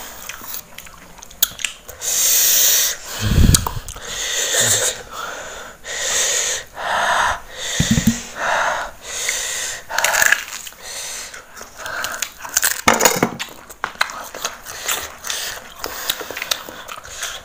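Sharp, hissing breaths drawn through the mouth, about one a second, from eaters reacting to the burn of a chili-only sambal, over the clicks of chewing raw fruit and vegetables. Two low thumps, about three and a half and eight seconds in.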